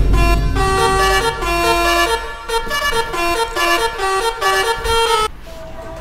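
A multi-tone 'telolet' musical horn playing a quick tune of steady notes that step up and down, starting about half a second in and cutting off suddenly about five seconds in. A low rumble sits under the start.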